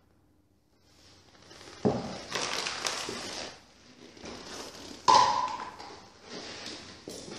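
Glass bottles being handled: a knock about two seconds in with a second or so of scraping and shuffling, then a sharp glass clink that rings briefly about five seconds in, followed by light handling noises.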